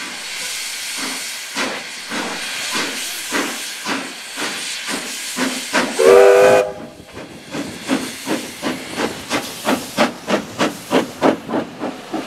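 Steam locomotive Ja 1275, a New Zealand Railways Ja class 4-8-2, pulling away with its train: hissing steam and regular chimney exhaust beats that quicken to about three a second as it gathers speed. About six seconds in comes one short blast on its steam whistle, the loudest sound.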